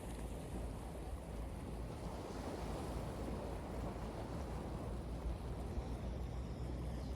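Sea waves breaking and washing on a beach: a steady surf noise with a low rumble, swelling a little a few seconds in.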